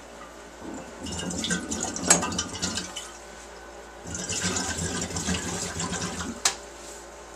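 Carbon dioxide from actively fermenting strawberry wine bubbling out through a blow-off tube into a glass jug of water, in two gurgling bursts of a couple of seconds each, about a second in and again about four seconds in, with a sharp pop in each. The hard bubbling is the sign of a very active fermentation building pressure under the bucket lid.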